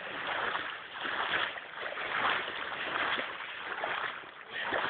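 Floodwater splashing and sloshing in surges about once a second.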